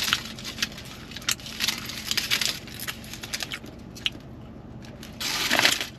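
Aluminium foil crinkling and crackling in quick clusters as a partly eaten burrito is handled and wrapped in it, with a louder rustle near the end.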